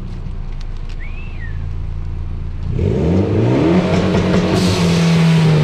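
A vehicle engine running low and steady, then revving up about three seconds in, its pitch rising and then holding high and louder.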